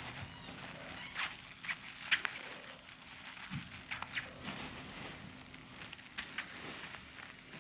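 Crinkly lining of a kitten play tunnel crinkling and crackling in irregular bursts as kittens wrestle inside it.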